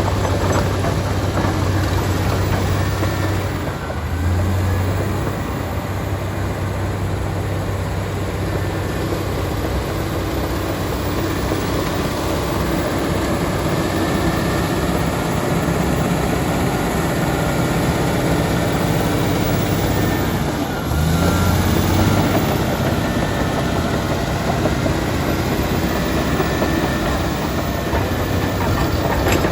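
Komatsu D85EX crawler dozer's diesel engine running steadily under load. Twice the engine note dips briefly and then comes back at a changed pitch, rising again at the second change, as the load on the machine shifts.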